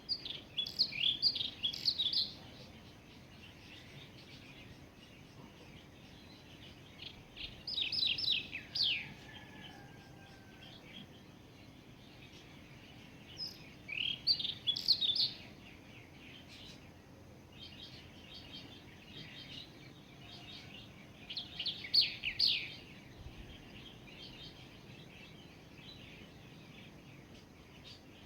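A songbird singing four short phrases of quick, high, falling chirps, each lasting about two seconds and several seconds apart, over a faint steady background hiss.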